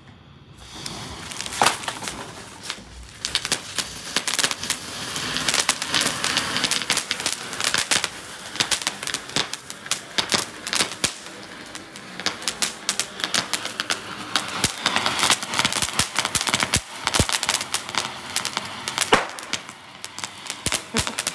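Flower-pot (anar) firework fountains spraying sparks: a steady hiss packed with crackling and sharp snaps, starting about a second in as the fuse catches.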